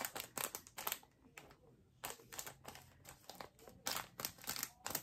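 Small plastic bags of diamond-painting drills crinkling in irregular bursts as they are handled and sorted.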